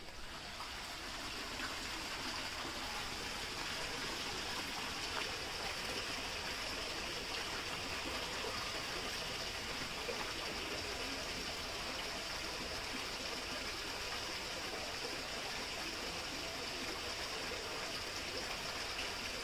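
Steady rush of running water, even and unbroken, with a high hiss on top.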